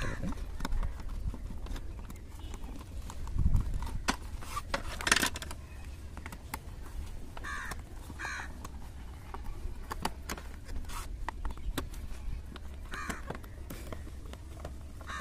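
Light clicks and knocks of a screwdriver and a plastic extension-board casing as the back cover is fitted and its screws are driven in. There is a thump about three and a half seconds in.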